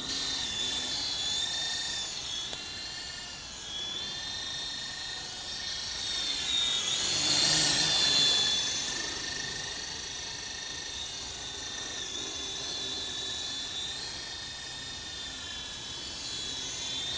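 Battery-powered F45 radio-controlled helicopter in flight: a high-pitched electric motor whine with rotor whirr, wavering in pitch as the throttle changes. It swells to its loudest about seven to eight seconds in as the helicopter passes close.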